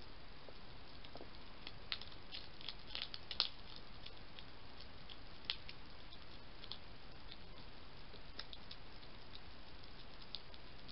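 European hedgehog crunching dry pellet food from a bowl: irregular sharp crunches and clicks over a steady hiss, busiest and loudest around two to three and a half seconds in, with another loud crunch about five and a half seconds in.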